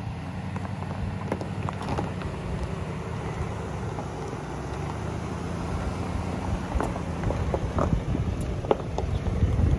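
GMC Yukon crawling over a rocky gravel track: a low engine rumble with stones crunching and popping under the tyres, growing louder as it comes close.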